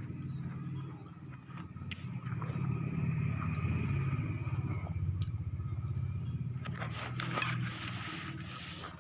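A low engine rumble that swells and then fades, like a vehicle going by, under scattered small clicks. About seven seconds in comes a short scraping crunch with one sharp click.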